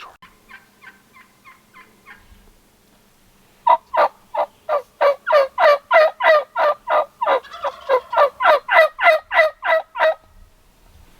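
Turkey yelping. A faint run of short notes comes first. About four seconds in, a long, loud series of yelps starts, roughly four a second, each dropping in pitch, and it cuts off abruptly near the end.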